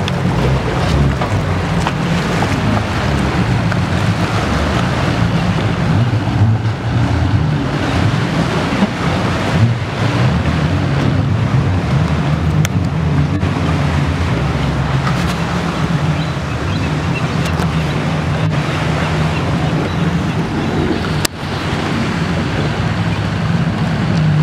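A boat engine running steadily under way, with water rushing past the hull and wind buffeting the microphone.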